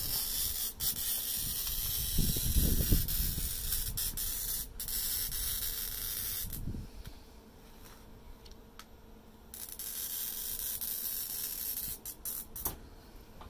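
Glass scorer's small metal wheel scoring straight lines across a sheet of glass, a steady high scratchy hiss. There are two passes: a long one of about six seconds, then a shorter one starting about nine and a half seconds in, with a few sharp clicks near the end.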